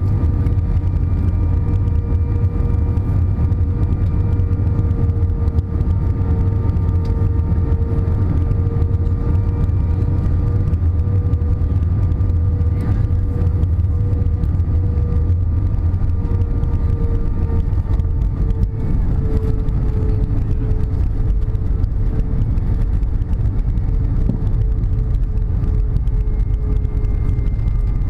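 Airbus A320 cabin noise heard next to the wing during final approach and landing: a steady jet engine and airflow rumble with a held, slightly wavering hum.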